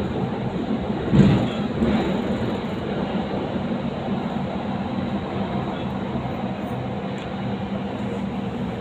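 Qatar metro Gold Line train running through a tunnel, heard from inside the front car: a steady rumble of wheels on rail with a low hum, and a short louder burst about a second in.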